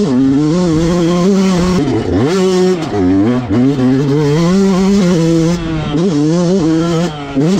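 Yamaha YZ125 two-stroke motocross bike engine heard from an onboard camera, held at high revs over wind and track noise. The throttle is briefly closed and reopened about two and three seconds in, and again near the end, so the engine note drops and climbs back.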